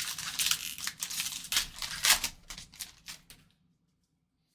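Foil wrapper of a baseball card pack being torn open and crinkled, a dense run of crackling rips and rustles that stops about three and a half seconds in.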